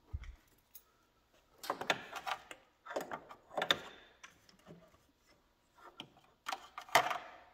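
Snowmobile chain case being wiggled loose by hand: scraping and clunking in several short bursts, about two seconds in, around three to four seconds, and the loudest near the end.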